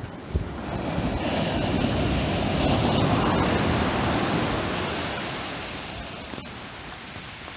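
Storm surf breaking on a sandy beach. The rush of the waves swells up about a second in, peaks around three seconds, then slowly fades as the wash runs back. There is a brief knock just after the start.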